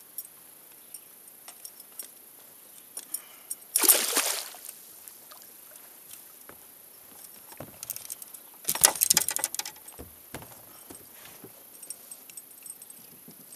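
A small walleye hooked on a bucktail spinner splashing at the water's surface beside a boat, two short splashes about four and nine seconds in. Faint scattered clicks and rattles come between them.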